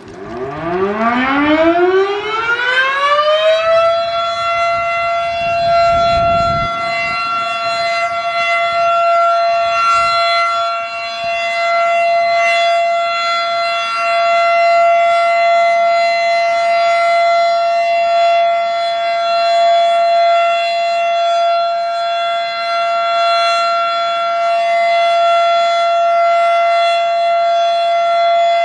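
Federal Sign & Signal Model 7 outdoor warning siren winding up, its pitch rising steeply for about four seconds, then holding a steady high tone: the full alert signal.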